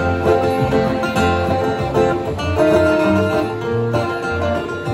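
Two acoustic guitars and an upright bass playing the opening instrumental bars of a song, the bass plucking a steady pulse of low notes under the guitars.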